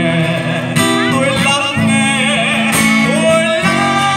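A man singing with a wavering vibrato, accompanying himself on a strummed steel-string acoustic guitar. Both sound through the stage microphone and speakers.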